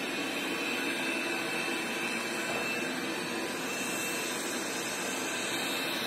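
Roidmi Eve robot vacuum running: the steady whir of its suction fan and brushes, with a thin high whine over it.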